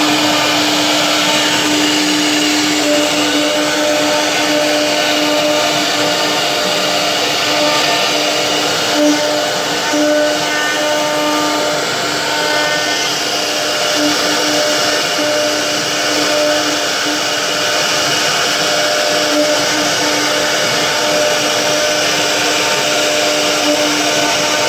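CNC machine running: a steady motor whine with a constant hum and overtones over a loud hiss.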